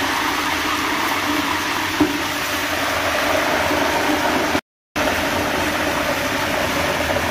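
Beef chunks sizzling steadily in hot ghee in a large aluminium cooking pot, with one short click about two seconds in. The sound cuts out for a moment about two-thirds of the way through.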